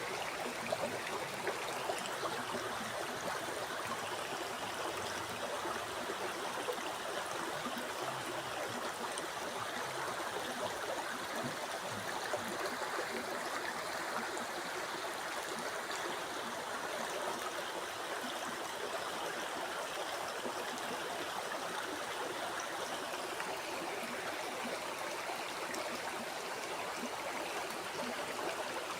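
Flowing river water, a steady rushing stream with small splashes and gurgles.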